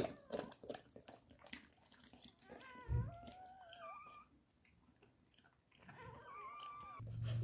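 Newborn Labrador puppy crying in thin, high, wavering squeals, twice: once about two and a half seconds in and again about six seconds in. Faint wet clicking from the mother dog licking it comes before the first cry.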